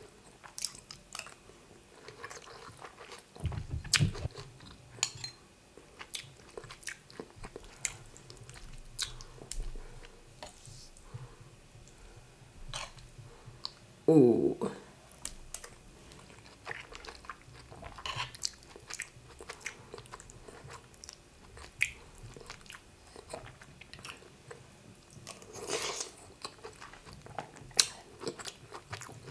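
Close-miked mouth sounds of someone chewing spoonfuls of rice and egusi soup: many short wet smacks and clicks. About halfway there is a brief hum-like vocal sound, the loudest moment.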